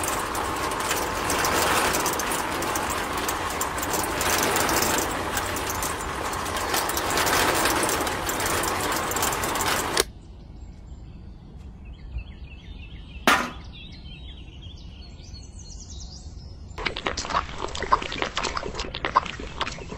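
Miniature model concrete mixer running: its small electric motor turns the can drum with wet mix inside, a steady loud rush that cuts off suddenly about ten seconds in when it is switched off. A single sharp knock follows a few seconds later. Near the end, wet cement slurry pours and splatters into a small bucket.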